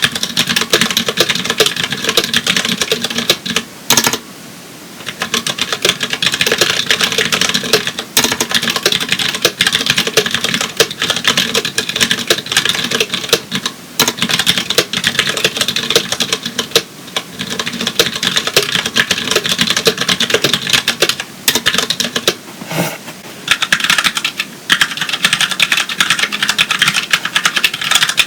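Fast continuous typing on a Tex Yoda mechanical keyboard with Cherry MX Clear switches (tactile, non-clicky), a dense patter of keystrokes with brief pauses. Near the end the typing moves to a Ducky Mini keyboard with Cherry MX Brown switches, sounding thinner with less low thock.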